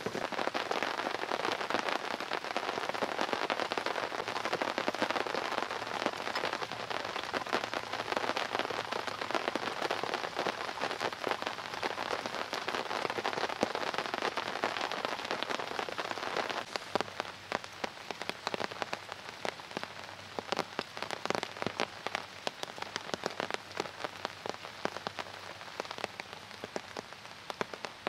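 Rain falling steadily, a dense patter of drops; it turns quieter and sparser about two-thirds of the way through.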